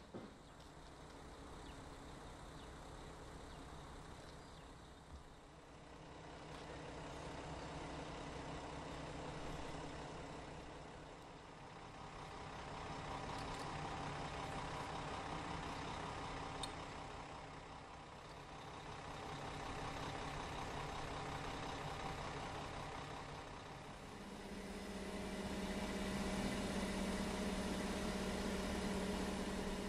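Heavy engine of a truck-mounted crane running while it hoists timber blocking. Its hum swells and falls every few seconds and is loudest near the end, where it takes on a stronger low drone.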